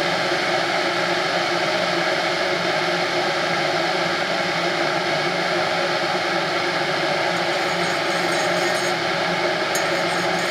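Stainless-steel electric kettle heating water, a steady rushing hiss. Near the end, a spoon starts clinking against a mug as it stirs.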